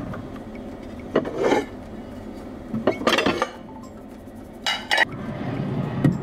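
Kitchen cookware clinking and clattering as a pan is lifted out and handled, in a few separate knocks: about a second in, three seconds in and near five seconds.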